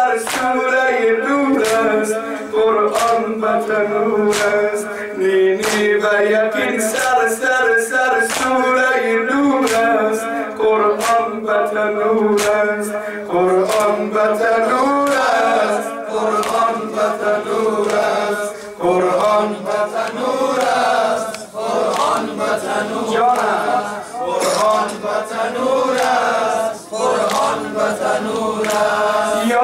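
A man sings a Shia noha lament (a Persian mourning chant) through a microphone and PA. Under it the congregation's matam, hands slapped on chests, keeps a steady beat of roughly one slap a second.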